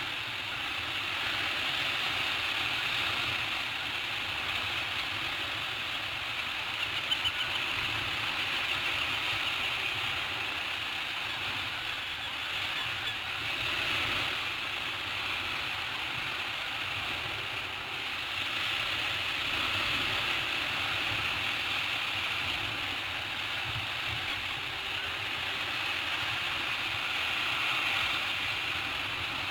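Steady rushing of wind and sea surf on an exposed sea cliff, swelling and easing every several seconds, with a few faint ticks about seven seconds in.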